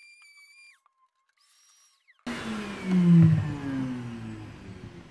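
A power tool's motor: a faint steady high whine for the first second, then about two seconds in a much louder motor sound that starts abruptly and falls steadily in pitch over the next few seconds.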